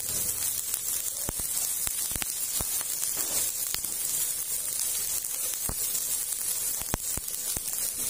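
Sweet soy and onion sauce sizzling and bubbling in a steel wok over a gas flame: a steady hiss with scattered sharp pops.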